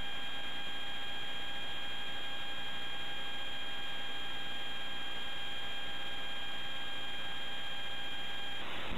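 Steady electronic whine with a hiss from a VCR's audio output while it shows its blue screen, a fixed high tone with overtones; it cuts off shortly before the end as tape playback begins and gives way to plain hiss.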